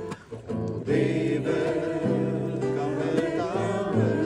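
A group singing a worship song in unison with guitar accompaniment. After a brief lull the singing comes in fuller and louder about a second in.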